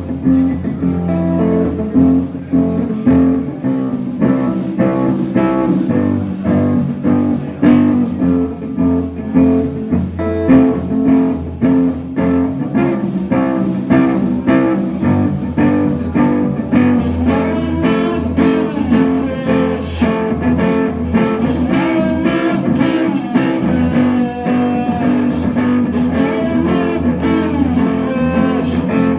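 Live band playing a slow song led by guitar, with bass and a steady beat.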